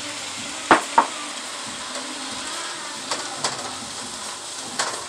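Chopped callaloo greens and turkey pieces sizzling in a hot pan as a wooden spatula stirs them, with a few sharp knocks of the spatula against the pan.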